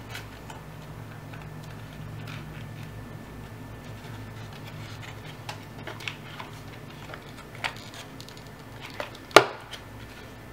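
Paper strips being handled and pressed around a paper form: scattered crinkles and light taps, with one sharp click about nine seconds in.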